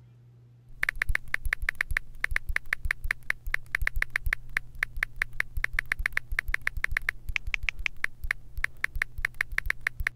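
Smartphone on-screen keyboard clicks as a message is typed: a fast, uneven run of short, sharp clicks, several a second, starting about a second in and stopping abruptly near the end.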